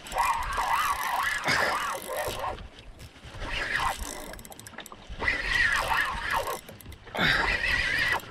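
Spinning reel being cranked in short bursts while fighting a hooked fish, a whirring gear sound that wavers in pitch with the winding speed, about five winds with brief pauses between them.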